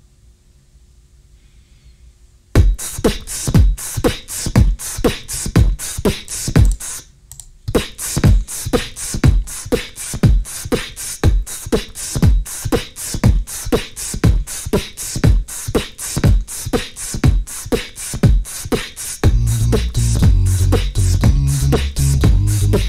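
Beatboxing looped on a loop station. After a short quiet opening, a steady beat of vocal kick drums and sharp hi-hat clicks starts, drops out for a moment, then carries on. Near the end a deep looped bass line is layered under the beat.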